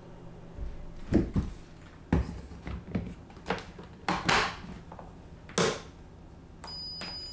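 Electric rice cooker being loaded and shut: a series of knocks and clunks as the inner pot goes in and the lid is closed, the last a sharp snap about five and a half seconds in. Near the end the cooker starts playing its electronic beeping tune.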